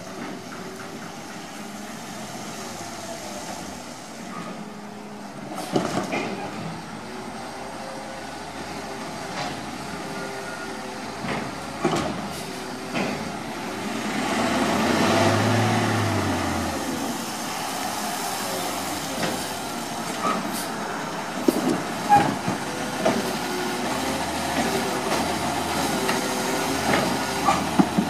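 2020 Peterbilt Labrie Automizer side-loading garbage truck's engine running as the truck creeps along, growing louder about halfway through. Scattered knocks and clanks are heard, more of them near the end as the truck works the curbside carts.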